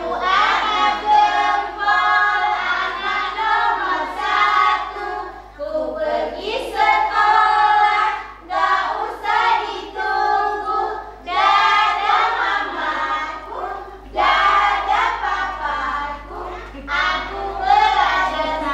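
A group of women and young children singing a children's action song together, phrase by phrase with short breaks between lines.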